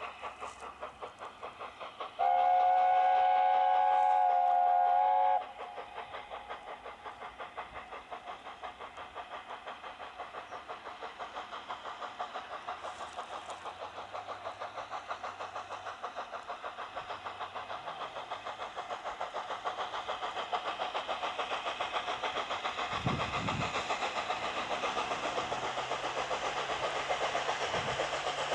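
Steam locomotive whistle sounding for about three seconds, a couple of seconds in. Then the engine's exhaust beats chuff evenly, about three a second, growing louder as the train approaches.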